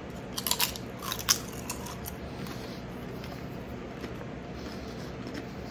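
A person biting into and crunching a Karamucho super hot chili potato chip: a quick run of crisp cracks in the first two seconds, the loudest just over a second in, then fainter chewing.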